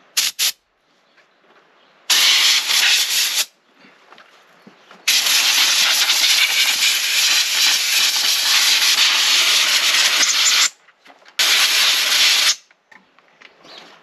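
Compressed air from an air-compressor blow gun hissing as it blasts sawdust and diesel out of a chainsaw's casing and cooling vents. Two quick spurts at the start, a short blast about two seconds in, a long blast of about five seconds, and a last short blast near the end.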